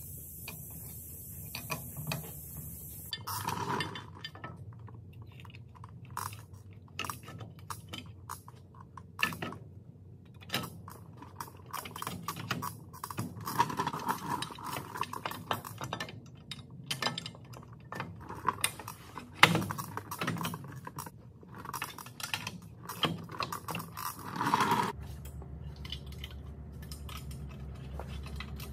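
Metal parts and hand tools clinking and knocking while a semi truck's front drum brake shoes are handled and fitted on the steering knuckle. The clinks are scattered and irregular, with one louder knock about two thirds of the way in and a steady low hum coming up near the end.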